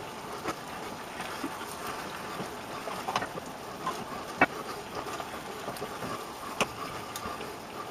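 Chicken fillets frying in a pan: a steady, quiet sizzle, with a few scattered light knocks and clinks.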